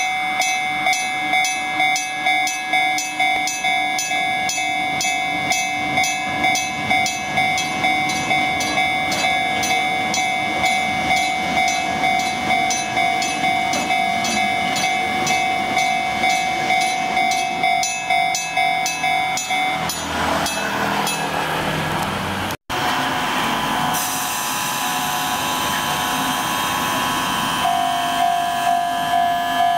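Enoden electric train passing at a level crossing, while the crossing's warning bell rings over and over, about twice a second. The bell stops about twenty seconds in, and the train's running noise carries on.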